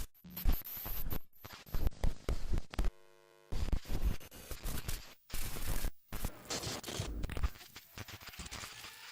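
Crackling, scratchy broadcast static that cuts in and out abruptly, with a short buzzing tone about three seconds in: the sound of a TV signal breaking up.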